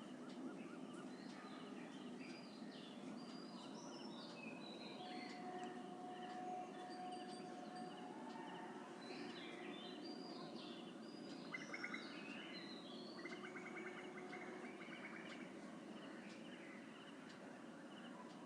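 Wild birds chirping and calling over a steady low background hum: scattered short chirps, a held whistled note about a third of the way in, and a fast rattling call about two-thirds of the way through.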